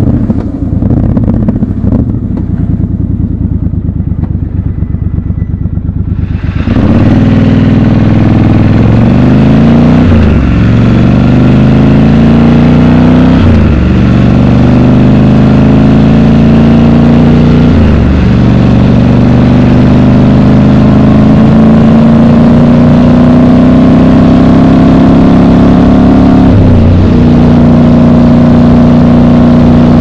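Triumph Scrambler 1200 XC's 1200 cc parallel-twin engine running at low revs at first, then accelerating hard about six seconds in. It shifts up through the gears, the pitch climbing and dropping back at each of four upshifts, and ends in a steady cruise.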